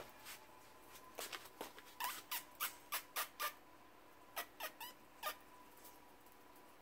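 Terrier puppies giving short, high squeaks in quick runs, about three a second at the busiest, with quiet stretches between the runs.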